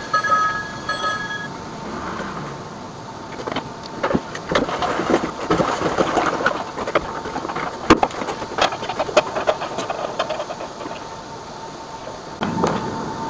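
Green high-pressure drain-jetting hose being handled and pulled at an open drain, with scattered knocks and clicks and a rustling swell in the middle, over a steady machine hum.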